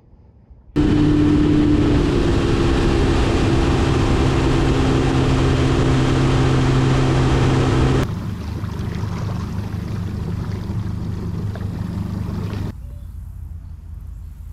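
Bass boat's outboard motor running with a steady drone, loud at first. It drops abruptly to a quieter run about eight seconds in, and drops again near the end.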